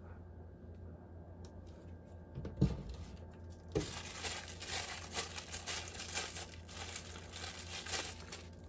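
Clear plastic wrapping crinkling and tearing as a silicone pastry brush is pulled out of its plastic sleeve, starting about four seconds in. Two light knocks come just before it.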